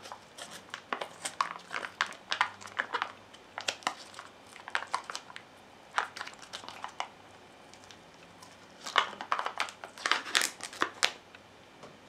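Packaging crinkling and tearing as the sealed lid of a plastic pudding cup is peeled off by hand. It comes in bursts of crackles, with a lull a little past halfway and the loudest burst near the end.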